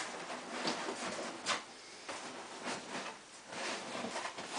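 Cardboard scraping and rubbing in a few short strokes as a cardboard display body is pushed down into its cardboard base.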